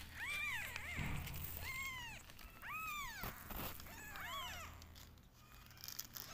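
Newborn kittens mewing: about five short, high-pitched mews, each rising and then falling in pitch, coming thinly in the first four seconds or so.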